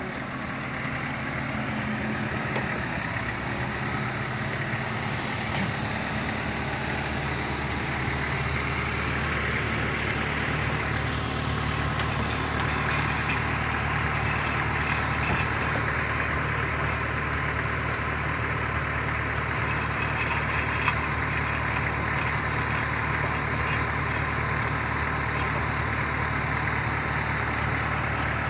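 The engine of a small wooden river car ferry running steadily under way, a low, even drone that grows a little louder in the first couple of seconds.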